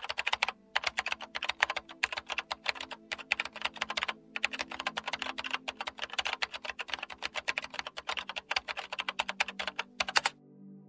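Rapid computer-keyboard typing sound effect, a fast run of key clicks with a few brief pauses, stopping abruptly about ten seconds in. A soft, steady ambient music pad runs underneath.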